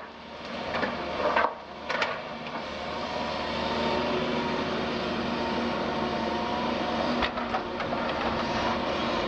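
Doosan DX180 LC excavator working: the diesel engine and hydraulics run steadily with a faint whine over the engine note. A few sharp knocks come in the first two seconds and another about seven seconds in.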